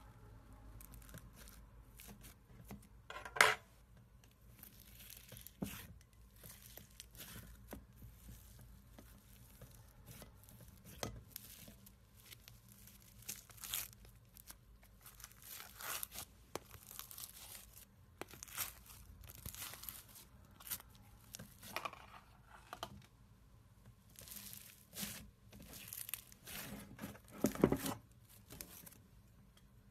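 Crunchy foam-bead slime being stretched, torn and squeezed by hand, a close run of crackling and popping as the beads crunch and the slime pulls apart. There is a sharp pop about three seconds in and a louder cluster of crackles near the end.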